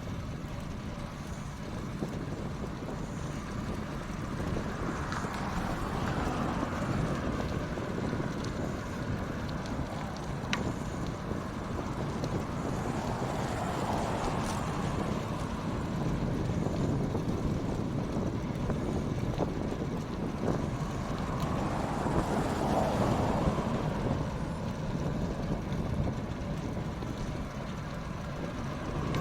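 Wind rushing over the microphone of a camera carried on a moving tandem bicycle: a steady rush that swells and eases every few seconds.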